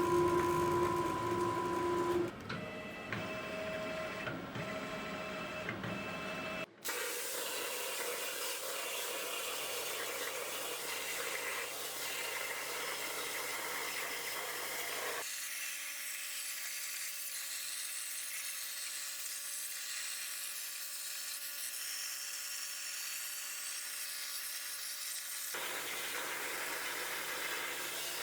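Homemade CNC plasma cutter at work: a steady, even hiss, with whining machine tones for about the first seven seconds, in several sections that change abruptly from one to the next.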